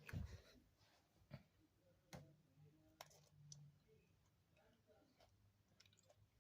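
Near silence broken by a soft low thump just after the start and a few faint clicks and taps from handling small tools and iPhone parts during reassembly.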